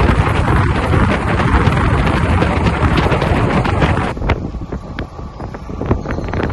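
Wind buffeting the microphone on a moving motorcycle, with the motorcycle running underneath. The wind rush is heavy at first and eases sharply about four seconds in, leaving lighter road noise and scattered clicks.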